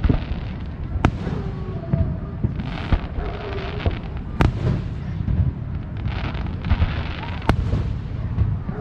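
Fireworks going off: a continuous rumble of booms, with sharp bangs about a second in, midway and near the end, and two stretches of crackling.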